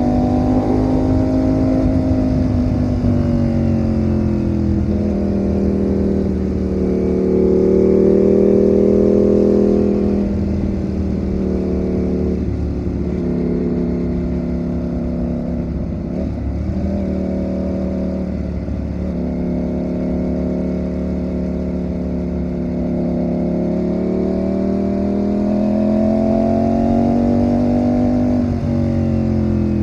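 Ducati Panigale V4's V4 engine running under way at moderate revs; its pitch falls over the first few seconds, wavers a few times around the middle, climbs again toward the end and drops sharply just before the end.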